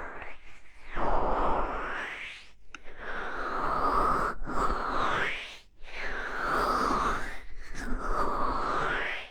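ASMR ear covering: hands cupping and rubbing over a microphone's ear, making a muffled rushing whoosh whose tone sweeps up and down. It comes in about four long strokes, each a second or two long, with short breaks between them.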